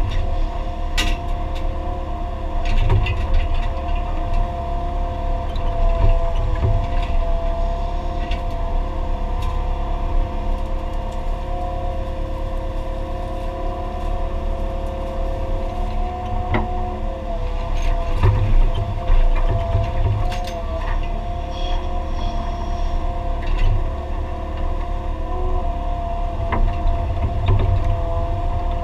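Excavator's diesel engine and hydraulics running steadily, heard from inside the cab: a low rumble with a steady whine, broken by scattered knocks and clatters as the bucket digs.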